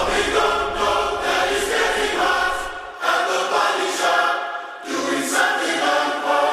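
Choral singing: several voices holding chords in long phrases, with brief breaks about three seconds in and again near five seconds.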